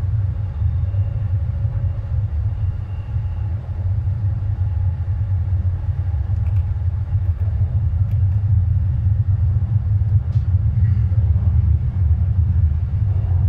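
Shanghai Metro Line 15 train running through a tunnel, heard from inside the car: a steady low rumble of wheels on track that grows slightly louder toward the end.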